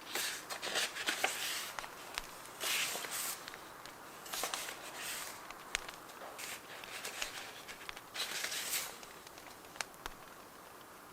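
Paper being handled and rustled in four short bursts, with small sharp clicks and ticks between them, over a faint steady bonfire crackle.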